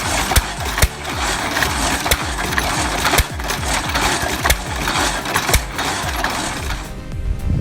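Vintage engine-powered log saw running: sharp engine firing knocks about twice a second over the rasping of the blade cutting through a log. The sawing noise stops about seven seconds in.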